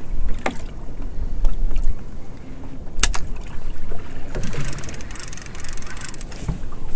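Wind buffeting the microphone over water lapping against a small open boat, with a couple of sharp knocks. A fine rapid rattle lasts about two seconds past the middle, likely from the fishing reel being worked.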